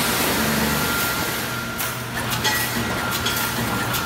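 Factory machinery noise around a wire mesh welding machine: a steady low hum with a few sharp clacks after about two seconds.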